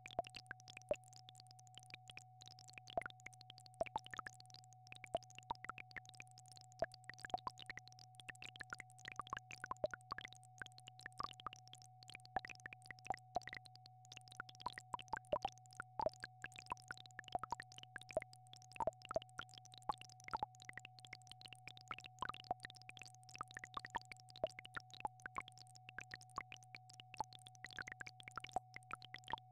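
Steady electronic healing-frequency tones: a held mid-pitched tone over a low hum, with irregular soft clicks and pops scattered densely throughout.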